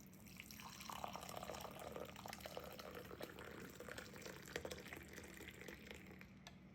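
Faint liquid sound, a steady wash with many small pops and clicks, over a low steady hum; it cuts off abruptly at the end.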